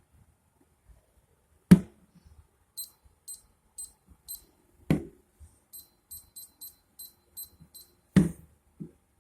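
Handheld moisture meter giving short high beeps, about two to three a second with a short pause in the middle, while three sharp knocks sound against the wall.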